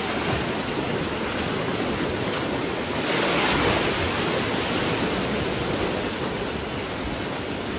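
Sea waves washing against a rocky shore: a steady rushing noise that swells slightly about three seconds in.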